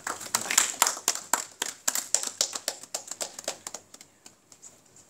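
A small group of people applauding by hand in a small room; the claps thin out and stop near the end.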